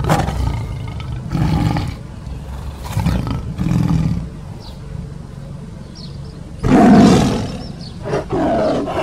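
Recorded tiger roars and growls in a series of separate bursts, shorter ones through the first four seconds and the loudest about seven seconds in, followed by two more near the end.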